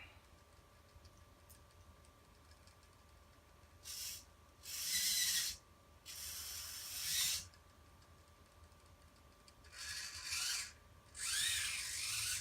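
Hobby servo motors in a 3D-printed robot hand and wrist whirring in five short bursts of movement, some with a whine that bends up and down in pitch.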